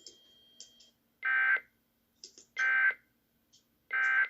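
Emergency Alert System end-of-message (EOM) data bursts: three short, identical buzzy bursts about 1.4 s apart. They are the digital code that closes the relayed monthly test message.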